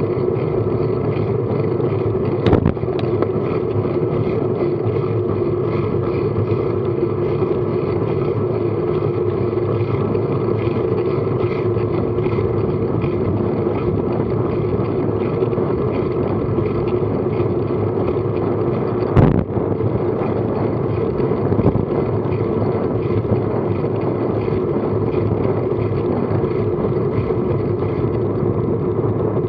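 Steady wind and road noise on a bike-mounted camera's microphone while cycling along a tarmac road at about 10 mph. Two sharp knocks come through, one a couple of seconds in and another about two thirds of the way through.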